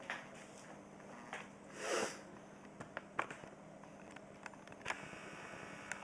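Quiet handling noise from a camera being moved back: scattered small clicks and knocks, with one sniff about two seconds in, over a faint steady hum.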